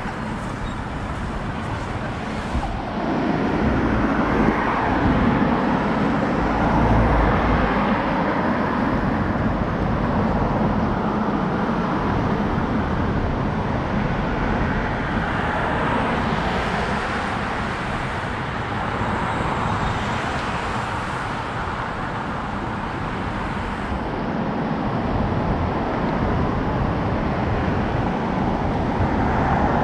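Steady road traffic noise, with cars passing and swelling in level a few times. Low wind rumble buffets the microphone, heard from a moving bicycle.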